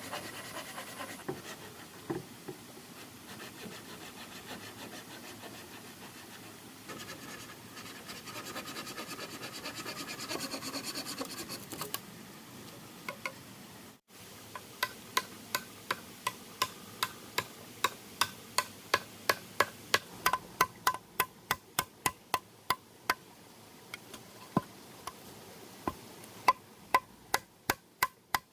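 Wood worked with hand tools: scraping and rubbing strokes for about the first half. After a sudden break, a long run of sharp blows on wood follows, about two to three a second and quickening near the end.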